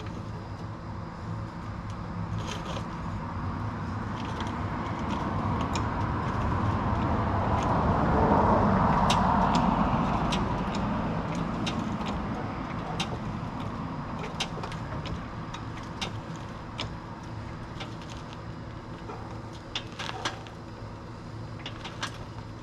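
A road vehicle passing by, rising to its loudest about midway and then fading away, over a steady low hum, with scattered sharp clicks and knocks throughout.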